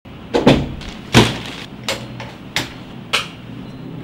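A series of sharp knocks and clacks, five or six of them, the first two close together and the rest about two-thirds of a second apart, over a faint low hum.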